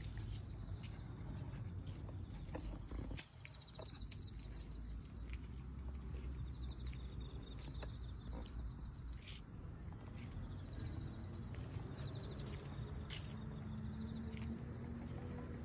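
Insects chirring outdoors: a steady, high, finely pulsed buzz that strengthens a few seconds in and eases off after about twelve seconds, over a low background rumble.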